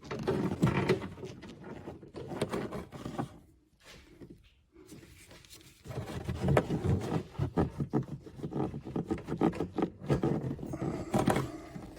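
Irregular scraping, rubbing and small clicks of hand work at a car taillight's mounting: the last 10 mm nut being turned off its stud by hand and the lamp housing worked loose. There is a brief lull partway through and a sharper click near the end.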